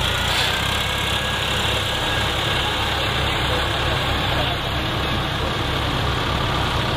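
Massey Ferguson tractor's diesel engine running steadily under load as it works a rotavator through a flooded, muddy paddy field.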